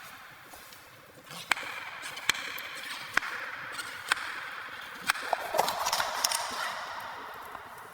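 Sharp knocks, about one a second and somewhat uneven, over a steady rustling hiss.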